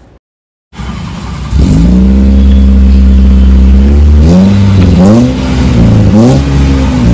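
Maruti Gypsy's exhaust note as its engine runs. The engine is held at a steady speed for a couple of seconds, then revved in several quick blips, each rising and falling in pitch.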